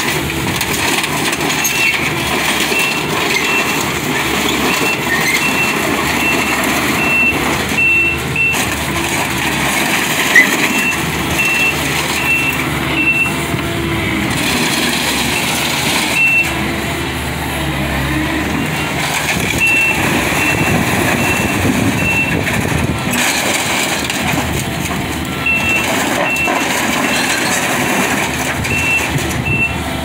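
Takeuchi TL10V2 compact track loader's diesel engine running as it works back and forth, its backup alarm beeping in several runs while it reverses. The steel bucket scrapes and crushes a sheet-metal filing cabinet, with one sharp knock about ten seconds in.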